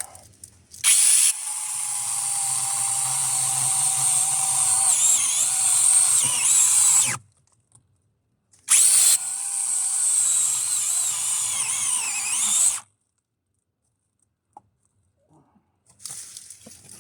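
Brushless battery chainsaw cutting into a tree trunk for the felling back cut, in two runs of about six and four seconds, each starting with a loud burst. Its high motor whine wavers and dips as the chain bites into the wood, and the saw stops dead between the runs and after the second.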